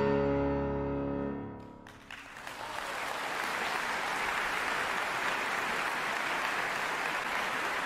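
A final chord on a concert grand piano ringing out and dying away, then audience applause breaking out about two seconds in and carrying on steadily.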